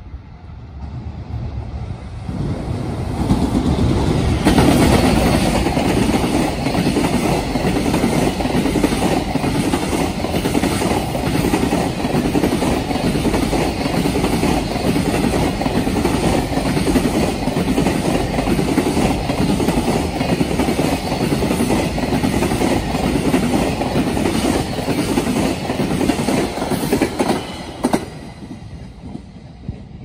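Container freight train hauled by an EF210 electric locomotive passing close by, its wheels clattering rhythmically over rail joints and turnouts. The sound builds over the first few seconds and drops away sharply near the end as the last wagon goes by.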